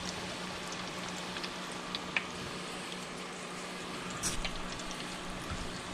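Cornmeal-battered sheepshead fillets deep-frying in hot oil in an electric deep fryer: a steady bubbling sizzle with a few sharp pops, the clearest about two seconds in and about four seconds in.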